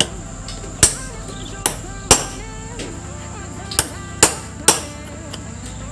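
A hammer strikes a 24 mm socket used as a drift, driving a bearing onto the shaft of a Yamaha 15 hp outboard's gear so that it seats against the gear. There are about eight sharp metallic blows at an irregular pace, with a quick run of three near the end, over background music.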